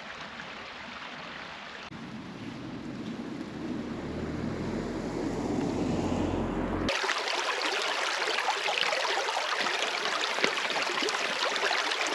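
A low rumble builds for a few seconds and cuts off abruptly about seven seconds in. It gives way to a shallow stream running over stones, a steady babble of water.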